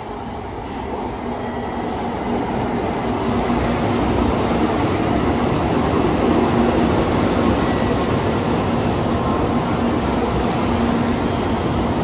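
Tokaido Shinkansen N700-series train pulling into the station platform, a steady rush of wheels and running gear that grows louder over the first few seconds as the cars pass close by.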